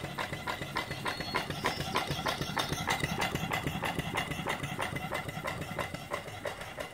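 Antique vertical single-cylinder steam engine (2-inch bore, 3-inch stroke) running steadily on live steam, its strokes beating in a fast, even rhythm of several a second.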